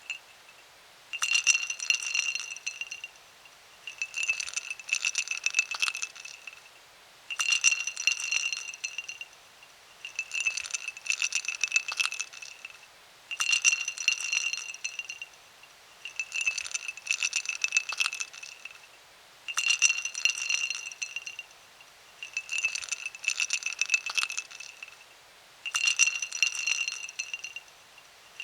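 Ice cubes clinking into a drinking glass in about nine separate bursts, roughly every three seconds. Each burst is a quick rattle of clinks, and the glass rings over it.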